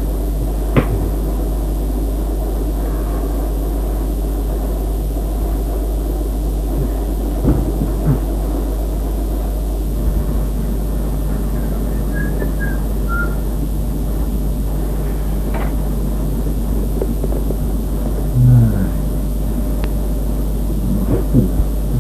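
Steady background hiss with a low electrical hum, broken by a few scattered light knocks and bumps, a short low bump about two-thirds of the way in, and a few faint short chirps.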